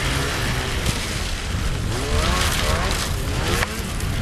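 Polaris snowmobile engine running close by, its pitch rising and falling repeatedly as the throttle is worked through the turns, over a heavy low rumble.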